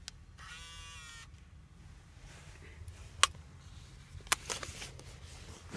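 A click as the STOP button of a Sony TCD-D100 DAT Walkman is pressed, followed by a short whir of its tape mechanism lasting under a second. Then come two sharp knocks from handling, over a low steady rumble.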